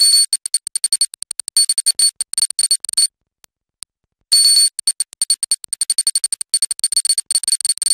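Sci-fi 'data error' beeps: rapid, stuttering, high-pitched electronic beeps and glitchy hissing blips, like a garbled computer transmission. They come in two fast runs, broken by a pause of about a second with a couple of lone blips.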